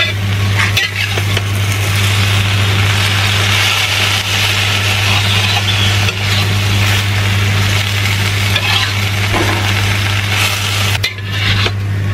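Water spinach stir-frying in a metal wok: a steady sizzle, with a metal spatula scraping and tossing the greens now and then, over a steady low hum.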